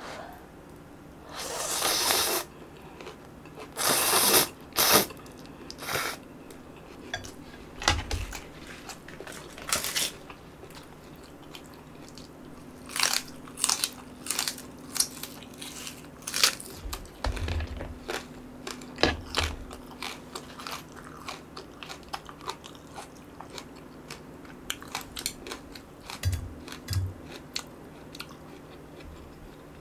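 Eating sounds: instant noodles slurped in a couple of long pulls near the start, then sharp crunching bites and chewing of a raw green onion stalk.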